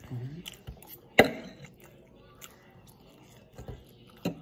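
Pancake eating at the table: a brief hummed 'mm' at the start, then a sharp clack of a fork on a plate about a second in and another near the end, with small ticks and chewing between.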